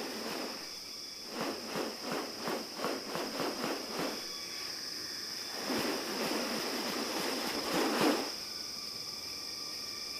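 Steady high-pitched buzz of rainforest insects. Over it come a run of rustling, whooshing noises at about three a second, then a longer rustling swell a couple of seconds later.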